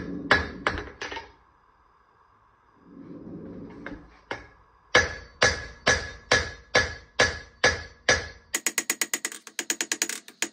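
Hand-hammer blows on hot wootz steel held on an anvil, each with a bright ring from the anvil. After a short pause about two seconds in, the blows fall steadily about twice a second, then near the end turn into a fast run of lighter strikes about five a second.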